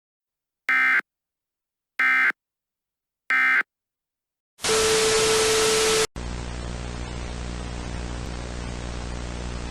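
Three short bursts of EAS digital data tones, about a second and a half apart: the SAME end-of-message code closing the alert. Then a loud burst of harsh noise with a steady tone for about a second and a half, cutting abruptly to steady static hiss with a low hum.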